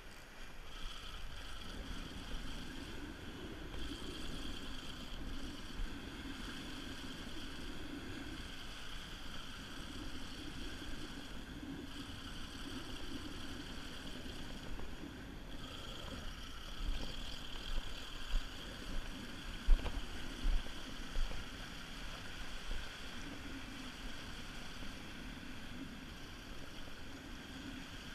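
Spinning reel being cranked steadily as a lure is retrieved, a whirring hum that pauses briefly a few times, over sea surf washing on the rocks. A few low thumps a little past halfway.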